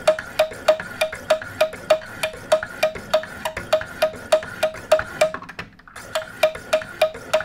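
Wicked Edge guided sharpener: two handheld stones alternately stroking a clamped knife blade to sharpen it. Each stroke is a sharp tick with a brief ring, about three a second, with one short pause about five seconds in before the strokes resume.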